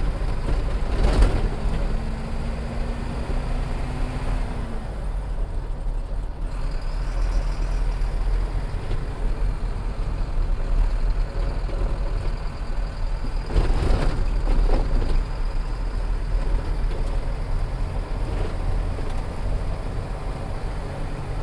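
Truck engine and road noise, a steady low rumble. It is broken by jolts from the potholed road, one about a second in and a couple more around fourteen seconds in.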